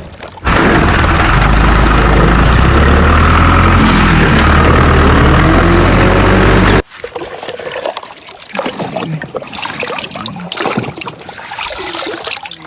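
Small motorised water pump running with a steady hum while water sprays in a hiss, cutting off suddenly about seven seconds in. Afterwards water trickles and drips.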